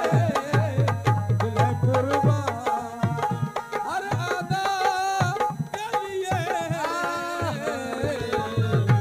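Live ghazal/qawwali accompaniment: tabla playing, with runs of deep, pitch-bending bass-drum strokes in the first couple of seconds and again near the end, under sustained harmonium-like melody and a woman singing into a microphone.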